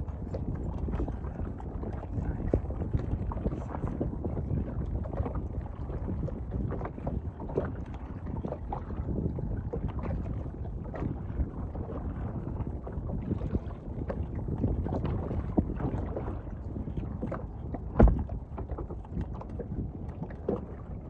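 Wind buffeting the microphone as a gusty rumble, with scattered small knocks and one loud thump near the end.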